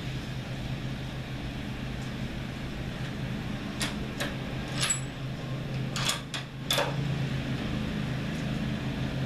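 A steady low mechanical drone, with a handful of short sharp clicks in the middle as the scoped rifle is handled on its rest before a shot.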